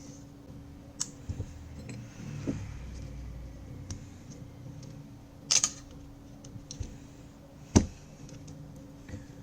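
Plastic midframe border of a Samsung A05s phone being pried off by hand: scattered small clicks and taps as its clips give, with a sharp snap about five and a half seconds in and a louder one about two seconds later.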